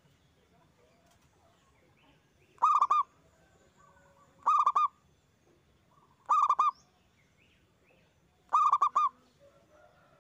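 Zebra dove (perkutut) singing its loud cooing song: four phrases of three or four quick notes each, about two seconds apart.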